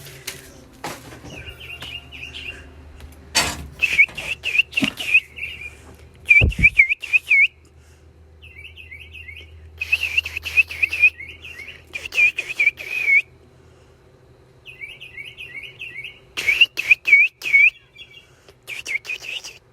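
Mockingbird singing in bursts of the same short chirp repeated several times, switching between a looping note and a quick downward note from one burst to the next. A few sharp clicks come in the first half.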